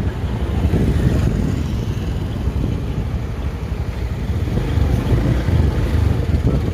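A vehicle's engine rumbling low and unevenly, with wind buffeting the microphone.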